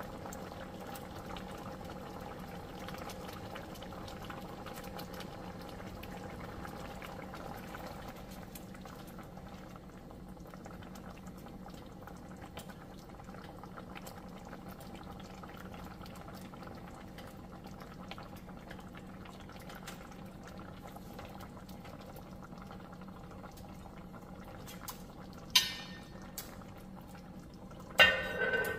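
Chicken curry simmering in a skillet, a steady soft bubbling. Near the end a sharp click, then a loud clatter as a lid is set on the pan.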